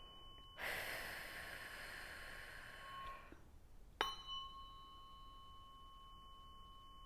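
Tuning forks ringing with steady, pure high tones. About half a second in, a rushing, breathy noise lasts for a few seconds. About four seconds in, a fork is struck with a sharp tap and rings on.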